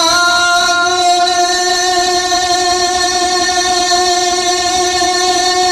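A man's voice holding one long, steady sung note in a naat recitation.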